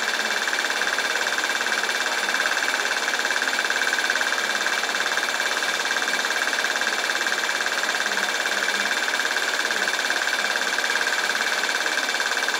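A film projector running: a steady mechanical whirr with a hissy, high-pitched band, unchanging throughout.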